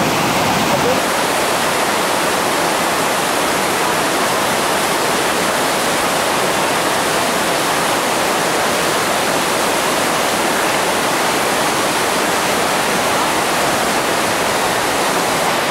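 Steady rush of whitewater on the Tallulah River, water pouring down the Oceana rapid.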